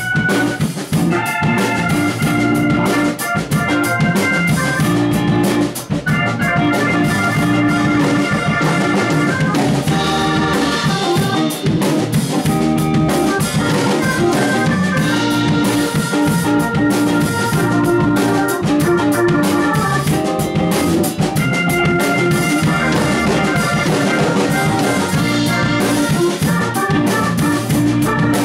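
Blues band playing an instrumental break: a drum kit keeps a steady beat under a lead melodic solo, with no singing.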